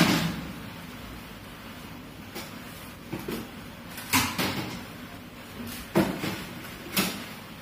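Knocks and clunks of a plastic mop bucket and its mop handle tipping over onto a marble floor and being picked up, a sharp knock right at the start and several lighter ones spread through the rest.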